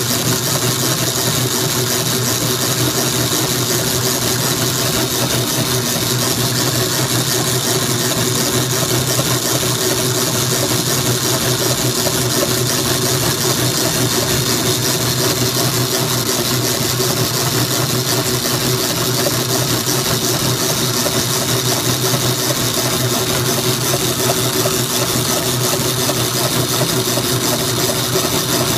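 Dayton power hacksaw running, its blade stroking back and forth through metal round stock, cut dry without cutting oil. A steady, unbroken machine sound.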